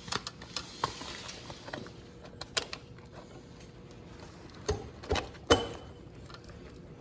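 Scattered clicks and knocks of the ATV's drive chain and master link being handled and fitted, with a cluster of sharper clicks about five seconds in.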